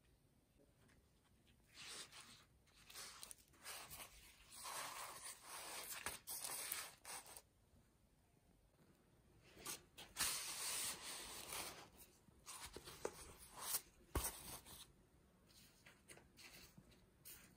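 Dry, freshly cooked lavash flatbread rustling and crackling as the thin sheets are handled, folded and stacked by hand, in several bursts of a few seconds each.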